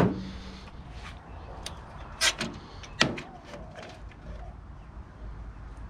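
Clicks and knocks of computer parts being handled and pried apart, with two louder sharp knocks about two and three seconds in.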